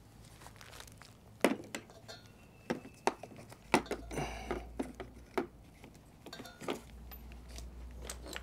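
Steel sockets and hand tools clinking against each other as they are picked through and handled: a string of sharp metallic clicks with a brief rattle about four seconds in.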